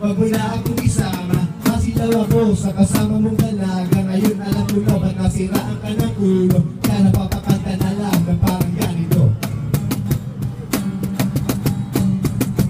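Live acoustic band playing: acoustic guitars strumming and a cajon keeping the beat, with a singer's voice over them. The cajon strokes come thicker in the second half.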